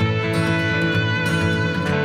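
Background music: a guitar-led track with plucked and strummed acoustic guitar.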